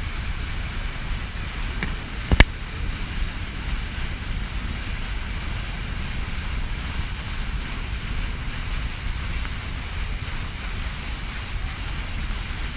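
Motorboat under way at speed: steady rushing of wind on the microphone mixed with the churning wake along the hull, with a low rumble underneath. A single sharp knock about two and a half seconds in.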